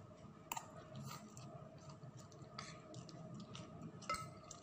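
Metal fork and spoon clicking and scraping against a glass bowl of instant fried noodles during eating, a few sharp clicks about a second apart, the loudest about four seconds in.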